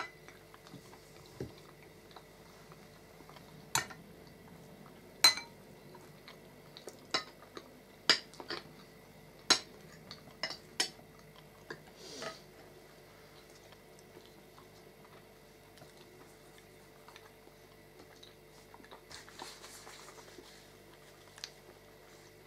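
Metal forks and spoons clinking and scraping against plates and glass bowls as two people eat, about ten sharp, irregular clinks over the first twelve seconds, then only faint ones.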